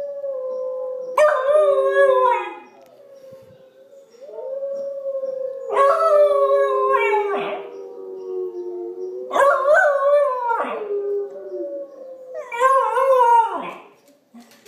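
A Pembroke Welsh Corgi puppy howling along with recorded wolf howls from a computer: long, steady wolf howls underneath and four loud, wavering howls rising over them.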